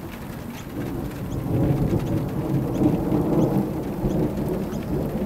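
Long rolling rumble of thunder from a thunderstorm, building about a second in and easing off near the end.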